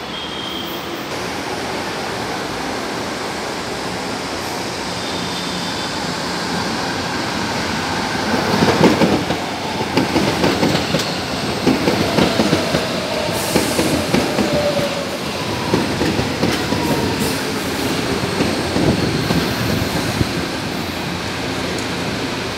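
São Paulo Metro train running through the station: a steady rumble that builds as it approaches, then from about eight seconds in the loud, irregular clatter of its wheels on the rails, with a faint whine rising and falling above it.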